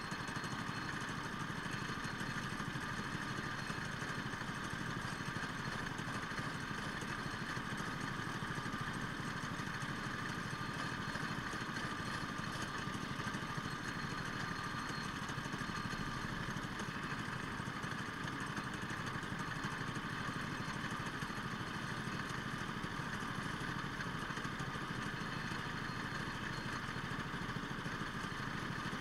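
Go-kart engine idling steadily while the kart stands still, with no revving.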